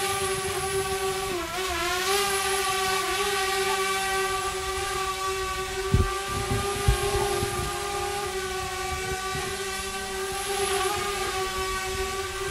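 Multirotor drone's propellers and motors giving a steady high buzz, its pitch dipping and wavering slightly as it manoeuvres. Two short low thumps about six and seven seconds in.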